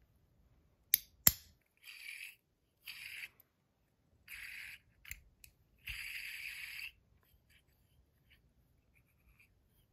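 Metal AntDesign Comma 2.0 fidget: two sharp clicks about a second in as a new top goes on, then four short whirring spins of the top, each lasting under a second.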